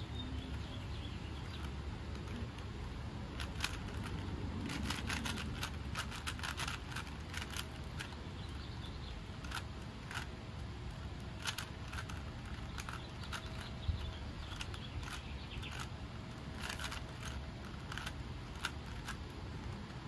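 Plastic Rubik's Cube being twisted by hand, its layers turning with quick, irregular clicks that come in runs of several turns, over a steady low rumble.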